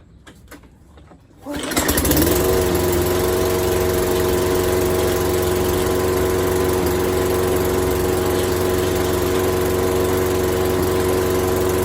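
Tecumseh 6.5 hp single-cylinder four-stroke engine on a Toro 22-inch Recycler lawn mower starting about one and a half seconds in, quickly picking up speed and then running steadily. The engine runs on its own now that its carburettor jets are cleaned and fresh gas is in, where before it only fired on starting spray and then died.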